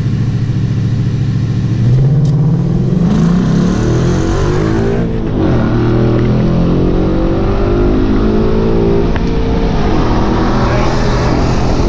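Car engine heard from inside the cabin under hard acceleration. After a steady stretch it revs up through the gears, with the pitch rising, falling at an upshift about five seconds in, and rising again, with another shift about ten seconds in.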